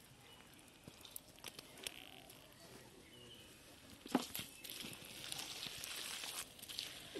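Bare hands digging and scooping in wet, sticky mud: scattered squelches and small clicks, then a sharp wet slap about four seconds in followed by a couple of seconds of squelching.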